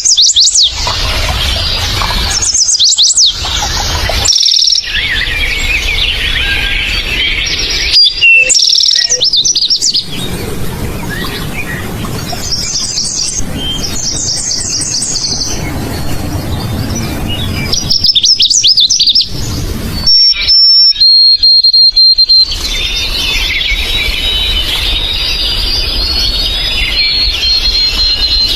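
Forest songbirds singing: a string of chirps, fast trills and whistled notes, broken by several abrupt cuts. In the last third a bird holds high, steady whistled notes over softer chattering.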